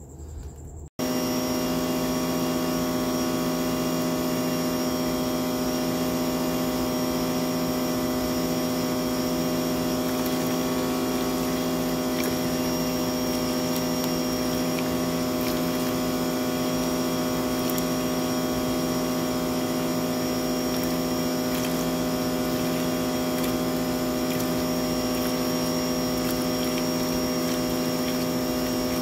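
Sun Joe SPX3000 electric pressure washer running steadily, driving a sewer jetter hose into a clogged kitchen drain line: a steady pitched motor-and-pump hum over the rush of water. It starts abruptly about a second in, and dirty water flushed back out of the pipe splashes into a tub.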